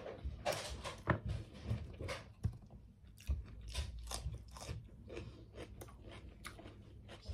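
A woman biting into and chewing bread close to the microphone: many short, irregular crunching and mouth sounds.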